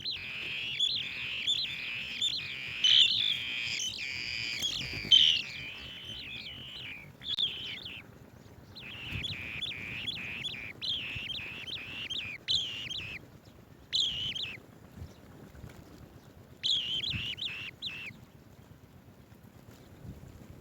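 Swallow-tailed bee-eaters chirping: a long bout of rapid high chirps, a second bout after a short break, then two short bursts, dying away for the last few seconds.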